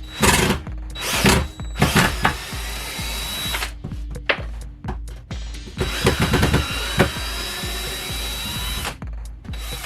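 Power drill running in several short bursts, then a longer run of about three seconds with a rising whine, over background music with a steady bass beat.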